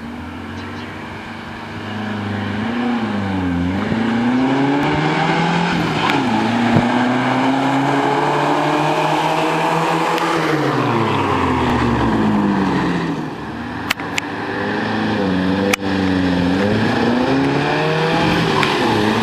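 Engine of a lifted Toyota pickup on oversized tyres driving close by, its pitch dipping and rising as it slows and accelerates, falling away sharply as it passes. Two sharp clicks come a couple of seconds apart in the later part.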